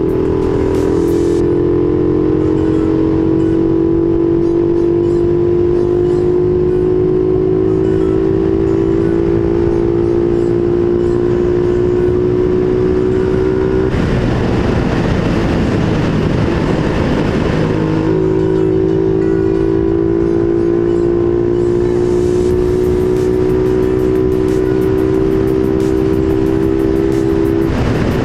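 Motorcycle engine, a Suzuki Raider R150 Fi's small single-cylinder, running steadily under way with its pitch slowly rising as it gathers speed. Around the middle the steady note gives way to a rougher, noisier stretch for a few seconds, then the steady engine note returns.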